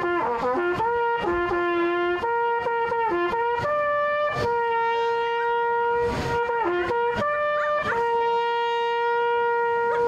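Brass hunting horn blown as a fanfare: a run of short notes, then two long held notes, sounding the call for the hunters to gather.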